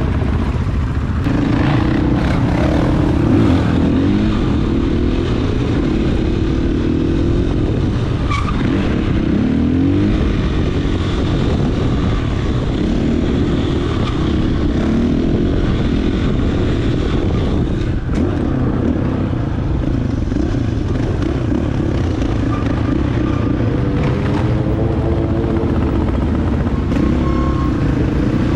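Dirt bike engines running under way, their pitch rising and falling again and again as they rev through the gears, over a steady low rumble.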